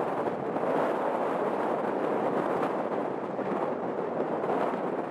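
Rolls-Royce turbofan engines of a Boeing 787-8 running as the airliner rolls along the runway, a steady rushing jet noise.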